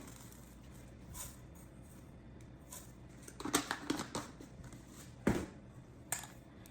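Kitchen handling noises as rosemary is added to the seasoning: light rustling and crinkling with a few sharp clicks and knocks, bunched about three and a half seconds in and then two single clicks near the end.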